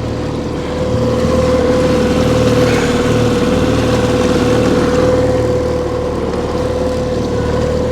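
Boat engine idling steadily, a continuous hum that gets slightly louder about a second in.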